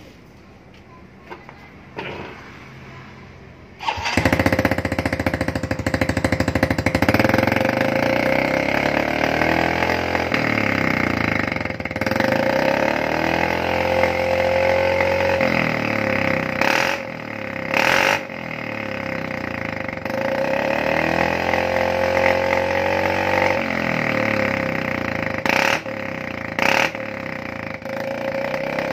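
Motorcycle with a hollowed-out Ahau aftermarket muffler, rebuilt for a loud 'MP7 drak' exhaust note, started about four seconds in and then revved repeatedly, the pitch rising and falling with each blip of the throttle. A few sharp cracks come through in the second half.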